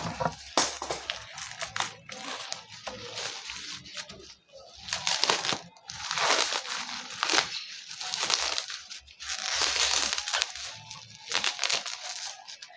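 Action figure's cardboard and plastic blister card packaging crinkling and tearing as it is handled and opened, in repeated irregular bursts.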